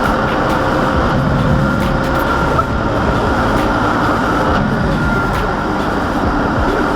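Logging truck's diesel engine running steadily under load while its built-in crane works, with a faint high steady whine over the engine noise.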